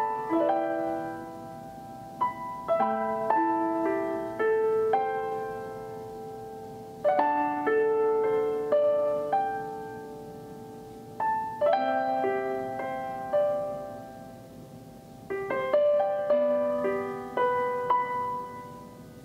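Gentle solo piano background music, phrases of struck notes that ring and fade, starting again every few seconds.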